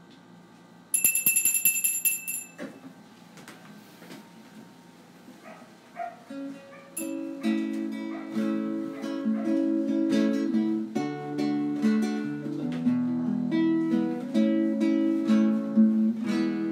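A short burst of high metallic ringing about a second in, then acoustic guitar music with plucked and strummed chords starting about six seconds in.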